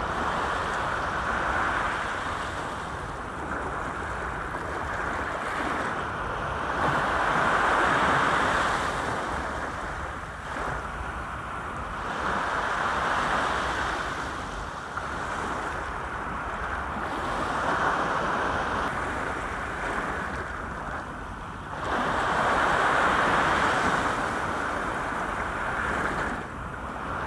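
Small sea waves breaking and washing up and back over a sloping concrete seawall, the wash swelling and easing about every five seconds.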